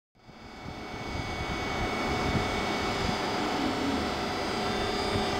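MÁV-START class 480 electric locomotive rolling slowly in with its train: a steady rumble with several high steady whine tones from its motors and fans, fading up from silence at the start and growing slowly louder.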